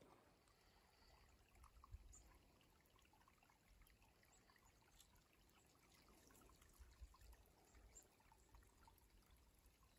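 Near silence: faint outdoor ambience with a few soft scattered ticks.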